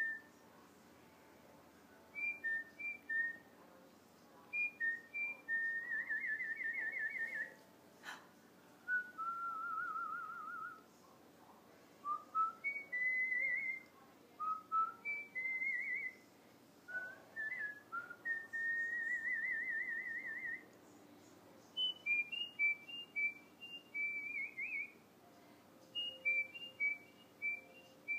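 Whistling in short runs of two to four notes and long warbling trills, the pitch moving up and down, with pauses of a second or two between phrases.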